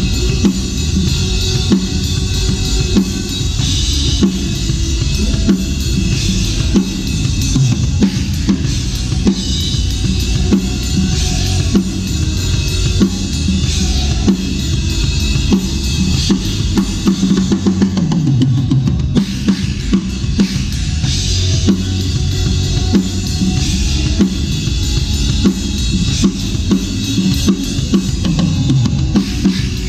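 Drum kit played continuously, with bass drum, snare and cymbals.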